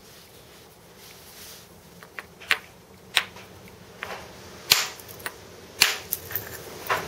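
Hammerstone striking the edge of a Fort Hood chert spall to knock flakes off: about five sharp stone-on-stone clicks, roughly a second apart, with lighter taps between, starting about two seconds in.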